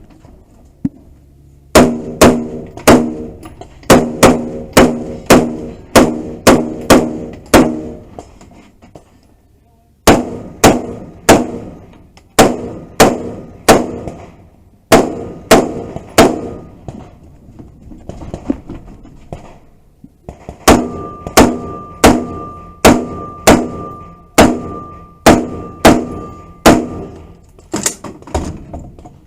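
Repeated sharp metallic strikes, each followed by a brief ringing tone, in three runs of about a dozen hits at roughly two per second with short pauses between runs. In the last run a higher ring sounds alongside each hit.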